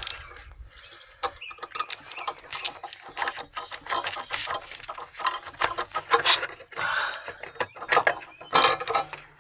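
Irregular clicks, knocks and scrapes as the brake master cylinder and its plastic fluid reservoir are worked by hand off the brake booster.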